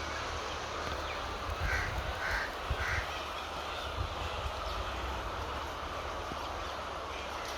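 A crow cawing three times in quick succession about two seconds in, over a steady low rumble.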